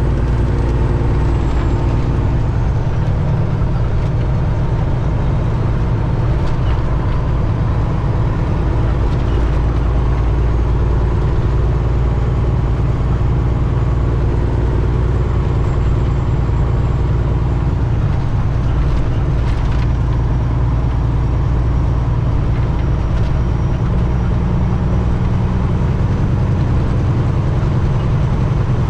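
Detroit Diesel engine of a Peterbilt 379 semi truck running steadily, a deep low drone, with a few light clicks.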